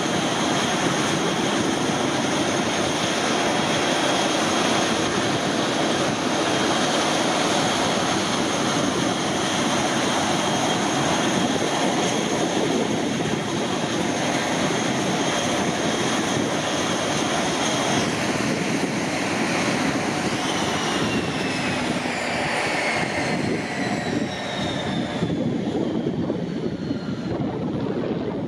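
Dash 8-300's Pratt & Whitney Canada PW123 turboprops running steadily at ground idle with a high whine. From about twenty seconds in, the engines shut down and the whine falls in pitch as the turbines spool down.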